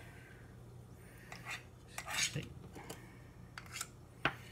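A metal utensil clinking and tapping against a dish and a frying pan as margarine is scooped into the pan: a handful of separate light knocks, the sharpest near the end.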